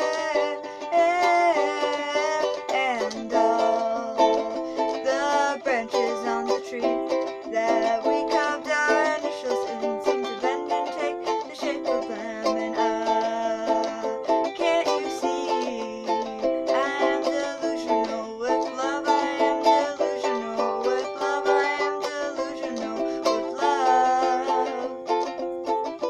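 Ukulele strummed in a steady rhythm, with a voice singing along over the chords.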